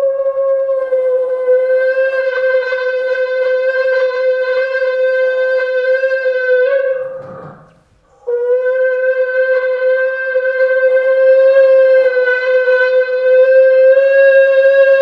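A woman singing one loud, steady high note into a microphone, amplified through a loudspeaker beneath a wine glass to drive the glass at its natural resonant frequency. The note fades out about seven seconds in and she takes it up again about a second later at the same pitch.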